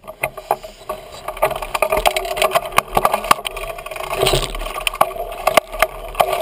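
Mountain bike rolling along a dirt trail, heard through a camera mounted on the bike: a steady rolling noise with many irregular rattles and knocks from the bike as it goes over the bumps.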